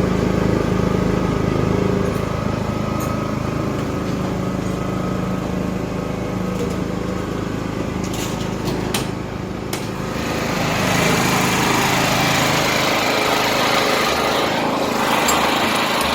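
A small portable generator's engine running steadily. About ten seconds in, its low hum fades and a higher, hissier running noise takes over.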